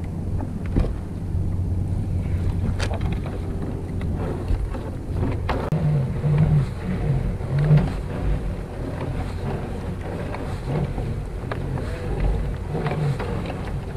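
A crab pot line being hauled up hand over hand from a kayak, with scattered knocks and rubbing of the rope against the hull. Wind on the microphone and lapping water run underneath.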